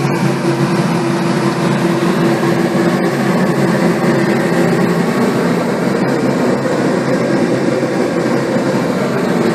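Dust-extraction exhaust fan running steadily: an even rushing of air with a low, steady hum, drawing demolition dust out of the chimney through its exhaust tube.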